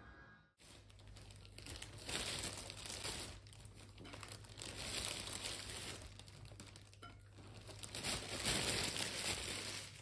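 A hot dog sausage frying in a pan on a hot hob: a dense sizzling and crackling that swells and fades in waves, over a low steady hum.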